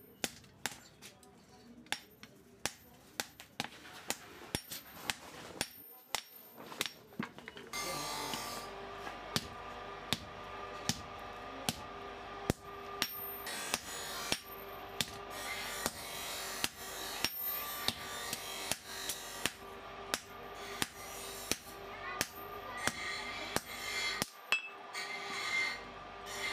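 Hand hammer striking red-hot gear steel on an anvil, regular blows about twice a second as the piece is forged flat. A steady hum comes in behind the blows about eight seconds in.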